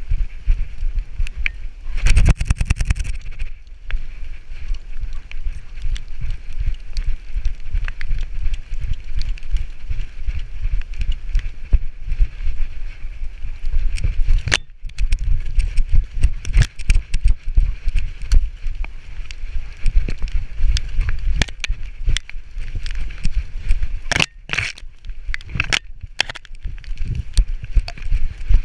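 A yellow Labrador retriever running through dry leaf litter, heard from a camera strapped to her back: steady thumping of her strides and body movement, with crackling and rustling of leaves underfoot.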